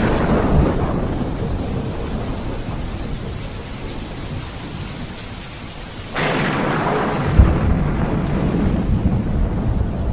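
Thunder rumbling and slowly fading over steady rain, then a new thunderclap breaks in suddenly about six seconds in, with a sharp crack a moment later, and rolls on.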